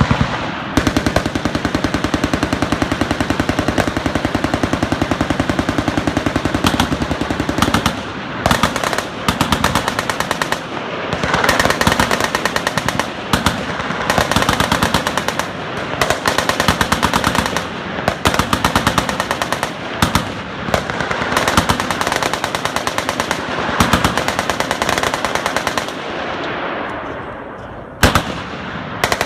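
Several machine guns firing long, rapid, overlapping full-auto bursts along a shooting line. The fire thins out briefly near the end, then a few more shots.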